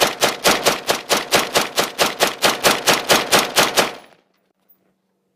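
M4-pattern AR-15 semi-automatic rifle in 5.56 mm fired in rapid succession, about five evenly spaced shots a second, stopping abruptly a little under four seconds in. The dust-fouled rifle cycles every round without a malfunction.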